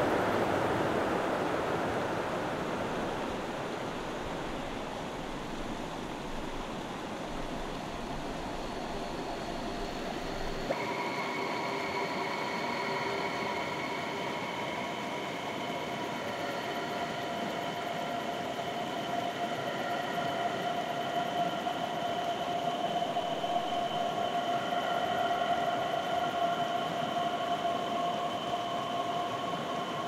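Rushing water fades slowly over the first ten seconds. Then a sudden cut about eleven seconds in brings a drone of several steady high tones that hold and shift, layered over a faint hiss.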